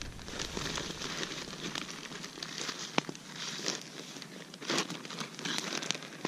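Plastic zip-top bag crinkling as oat flakes are scooped by hand from it into a small pouch, in short irregular rustles, with one sharp click about three seconds in.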